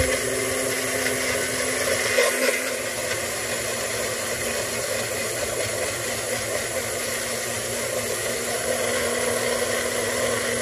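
Personal bullet-style blender running steadily, its motor grinding mint and coriander into a green chutney paste.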